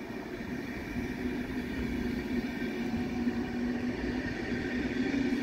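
DSB double-deck train pulling out of the station: a steady hum with a low held tone and a fainter higher one, slowly growing louder.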